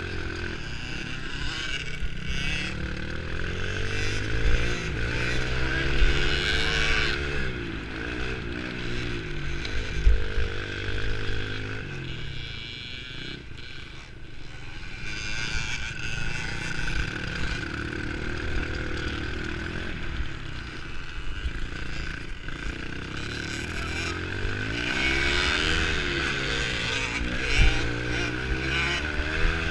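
65cc two-stroke motocross bike engine under the rider, revving up and dropping back again and again as it is ridden around a dirt track. It runs quieter and lower for a few seconds around the middle, and short knocks sound from the bumpy ground throughout.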